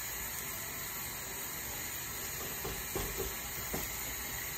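Steady hiss of a thin sheet of rougag dough cooking on a hot griddle plate, with a few soft taps about two and a half to four seconds in.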